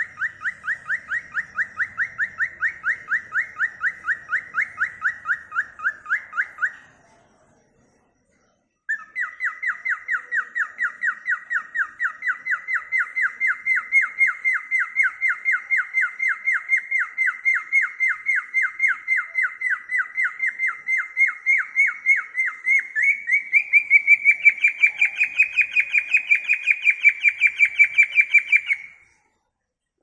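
Cockatiel calling in a fast, even run of chirps, about five a second. It breaks off for about two seconds, then resumes, rising a little in pitch and growing louder near the end.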